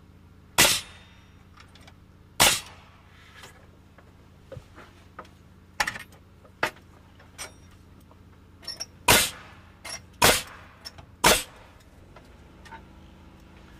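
Pneumatic framing nailer firing nails through a valley rafter into the ridge board: about half a dozen sharp, loud shots at uneven intervals, with smaller knocks of the wood between them.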